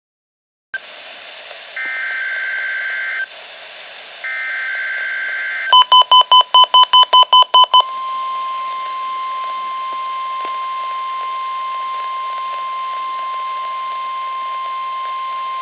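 NOAA Weather Radio weekly alert test over a hiss of radio static. It opens with two short bursts of the warbling two-tone SAME digital header, followed by a fast run of about ten loud beeps. Then comes the steady 1050 Hz warning alarm tone, held for about nine seconds, which is the warning alarm device being tested.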